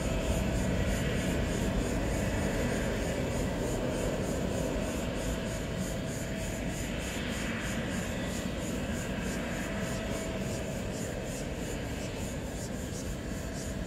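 Gulfstream G400 business jet's twin Rolls-Royce Tay turbofans running at low power as it rolls slowly along the runway after landing. The steady rumble and hiss, with a faint steady whine, slowly fades.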